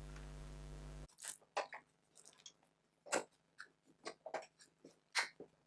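A low steady hum for about a second that cuts off abruptly, then scattered faint clicks and taps from small parts and tools being handled on a workbench.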